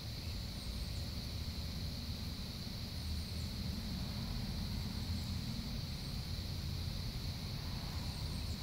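Outdoor ambience with no distinct event: a steady low rumble under a constant high-pitched hum, with a few faint, short high chirps.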